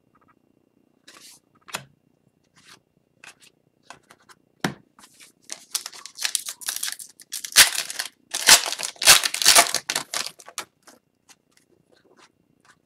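Foil wrapper of an Upper Deck Series 2 hockey card pack being torn open and crinkled. The dense crackling lasts several seconds around the middle, with a few light clicks before and after.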